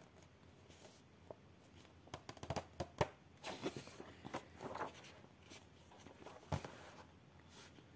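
Felt-tip markers and coloring-book paper being handled: light rustling and scattered small clicks, busiest in the middle, with sharper clicks about three seconds in and again about six and a half seconds in.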